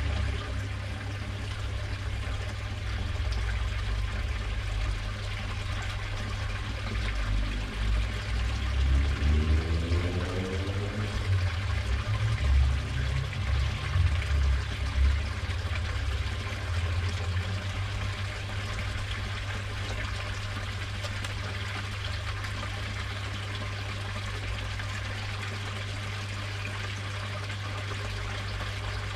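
Water steadily trickling and pouring into a garden koi pond, over a low rumble that swells in the middle. A brief rising tone sounds about eight to eleven seconds in.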